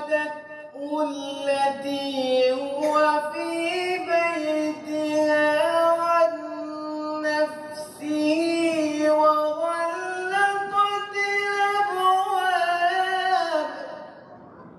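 A man reciting the Qur'an in a slow, melodic tajweed style, holding long ornamented notes that climb gradually in pitch, then falling away near the end.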